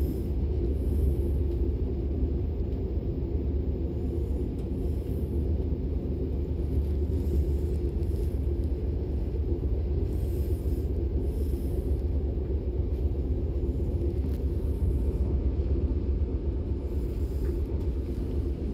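DB class 425 electric multiple unit running along the line, heard from inside the passenger compartment as a steady, even rumble.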